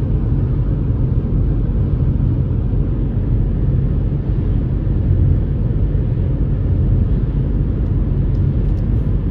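Steady low rumble of road and engine noise inside a car's cabin while cruising at motorway speed.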